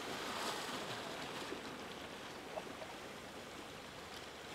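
Sea water washing against the rocks in a steady, even wash.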